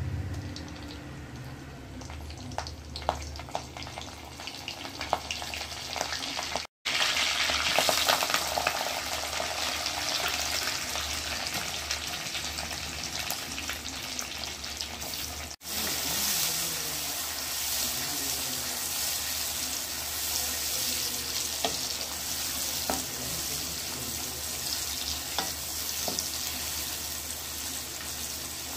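Fennel seeds crackling and sizzling in hot gingelly oil in an aluminium kadai, with sharp pops. About seven seconds in the frying grows louder and steadier as sliced onions and green chillies fry. A wooden spatula stirs through them.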